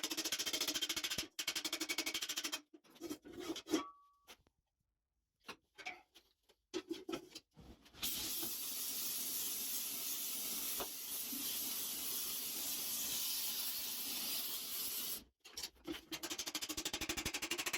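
A rapid fluttering noise, then short broken sounds and a near-silent gap. From about eight seconds in, a steady loud hiss runs for about seven seconds and then cuts off suddenly, and the fluttering noise returns near the end.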